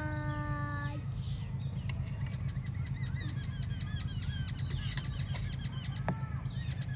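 Small birds chirping in quick, repeated high notes from about two seconds in, after a long drawn-out call that fades out about a second in, over a steady low rumble.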